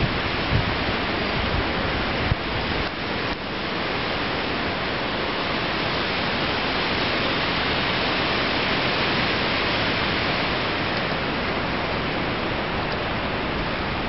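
Wind blowing through pine trees: a steady rushing hiss through the needles and branches, growing a little louder midway.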